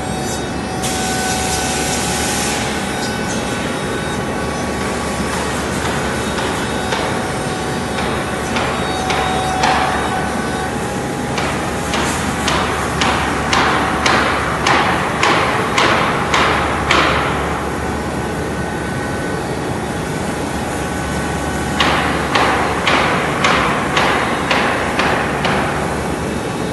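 Repeated sharp knocks like hammer blows, about two a second, each ringing briefly. They come in two runs, one from about a third of the way in lasting about six seconds and a shorter one near the end, over a steady background hiss with a faint hum.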